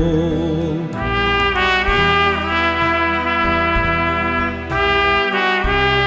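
Song accompaniment in a Christian worship song: a held sung note with vibrato ends about a second in. A brass-like lead, trumpet in tone, then plays a stepping melody as an instrumental break, over a bass line and a steady beat.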